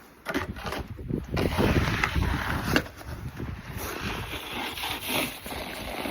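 Wind buffeting the microphone, a gusty rumble that swells and drops.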